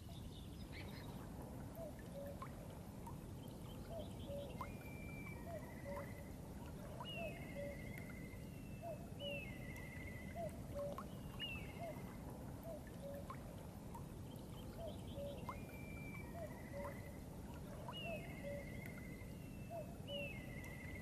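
Birds singing at dawn by a river: one bird repeats a short song phrase, a quick sliding note then a buzzy trill, every couple of seconds, while short low calls come about once a second, over a steady low rush of river water.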